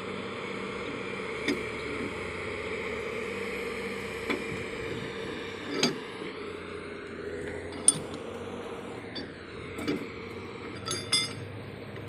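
A steady mechanical hum with sharp metallic clinks and knocks every second or two, two of them close together near the end.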